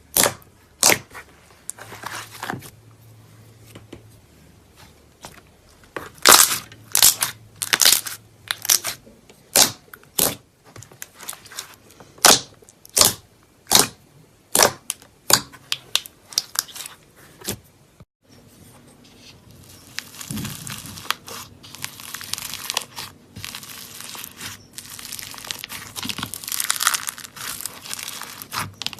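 Slime being played with: a run of sharp, separate pops and clicks, changing a little past halfway to continuous crackling.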